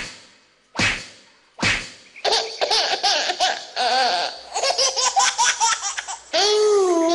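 Three sharp hits about a second apart, then a single voice laughing in a quick ha-ha-ha for about four seconds. A long held, wavering tone comes in near the end.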